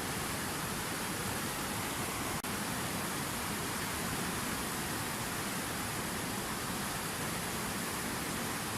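Water from a fountain waterfall falling and splashing in a steady, even rush, with a very brief dropout about two and a half seconds in.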